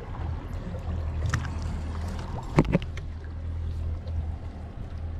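Boat drifting at sea: a steady low hum with water lapping against the hull, a few small clicks of fishing tackle, and a sharp double knock about two and a half seconds in.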